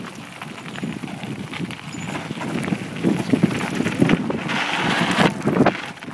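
Mountain bike rolling downhill over loose gravel and rocks: tyres crunching and the bike rattling over bumps, with wind buffeting the microphone. It grows louder in the second half.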